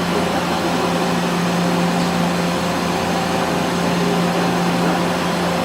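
Mazak VCN-510C-II vertical machining center running: a steady mechanical hum with a constant low tone under an even hiss.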